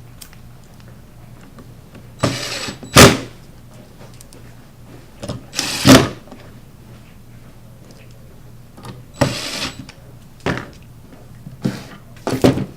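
Power drill/driver driving small screws into concealed cabinet-door hinges in short runs of about a second each, the first two ending in a sharp knock, with several shorter runs near the end.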